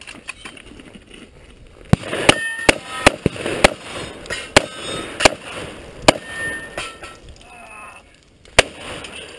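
A shotgun fired in quick succession at steel knockdown targets: about nine shots, the first five under half a second apart starting about two seconds in, then more spaced out, with one last shot near the end. Several shots are followed by brief metallic ringing from the steel plates being hit.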